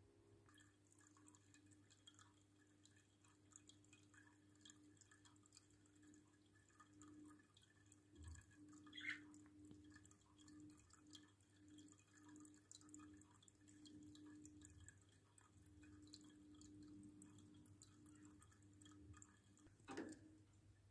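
Near silence: a faint steady hum with a few faint ticks, a short faint rising sound about nine seconds in, and a brief falling sweep near the end.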